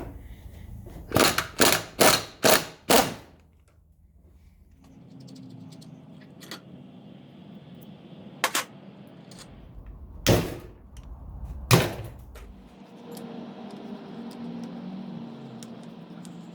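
Sharp knocks from work on motorcycle engine parts: five loud strikes in quick succession, about two a second, then two more single strikes later on, with quieter clicks and handling sounds between.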